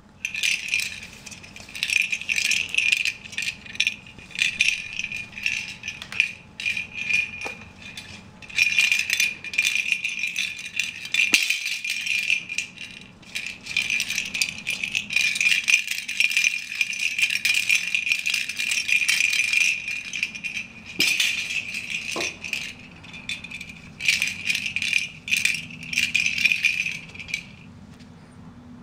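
Plastic lattice ball toy with a bell inside rattling and jingling as a rabbit noses and pushes it about. It goes in bouts with short pauses and stops about a second before the end.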